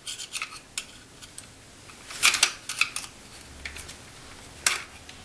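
A screwdriver tip clicking and scraping against a steel E-clip and the plastic frame of a Jura espresso machine's brew group as the clip is pried off the end of its steel rod, with a quick cluster of sharper clicks about two seconds in.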